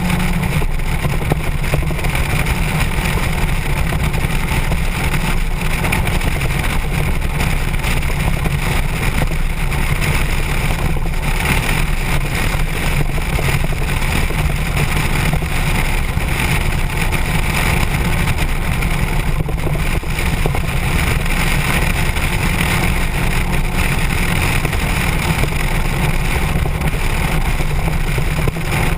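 Motorcycle running at a steady cruising speed, its engine rumbling under a constant rush of wind noise on the onboard microphone.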